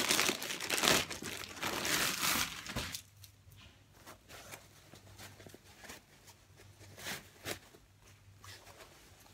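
Parcel packaging crinkling and tearing as it is opened by hand, loud for about the first three seconds. After that only a few faint rustles and clicks remain.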